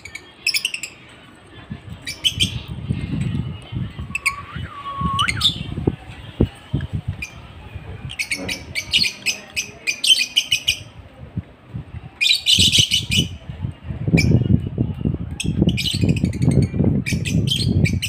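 Lovebirds chirping in short, quick bursts of high chirps, with a gliding, rising note about five seconds in. A low rumble sits under the chirps at times, strongest near the end.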